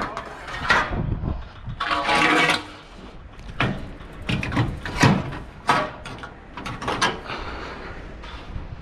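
Metal knocks and clanks from handling the side boards and stanchions of a curtainsider truck trailer, with a longer rattle about two seconds in.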